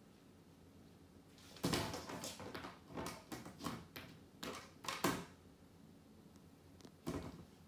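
A cat pawing and scratching at a small closed cat door set in the wall: a quick run of scrapes and knocks for a few seconds, then one more near the end.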